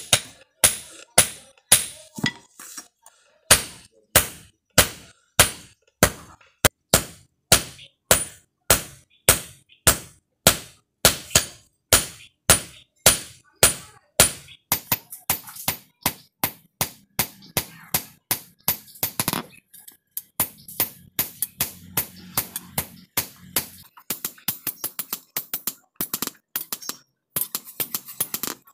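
Hand hammer striking a red-hot steel knife blade on a steel block anvil, forging the blade: sharp ringing blows at about two a second, then quicker and lighter in the second half, with a few short pauses.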